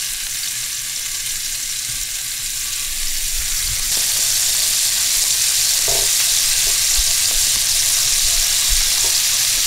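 Ground-beef meatballs frying in hot oil in a skillet: a steady sizzle that grows louder about four seconds in, with a few faint knocks.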